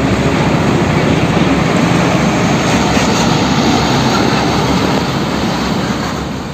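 A strong jet of water spraying onto a muddy toy truck, a loud, steady rush that starts suddenly and eases off slightly near the end.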